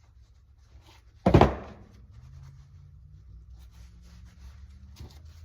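A single hard hammer blow on the steel door hinge of a 1966 Chevrolet C10, held in a vise to drive out its worn hinge pin, about a second in, with a short metallic ring after it. A faint steady low hum follows.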